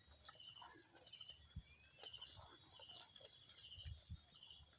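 Faint, steady, high-pitched insect trilling, with short chirps repeating every second or so.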